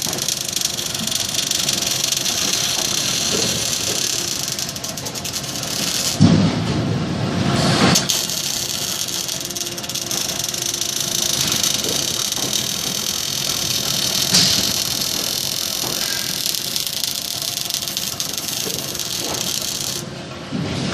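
Steady hissing and crackling of a robotic welding line for water heater tanks, with a louder low rumble about six to eight seconds in.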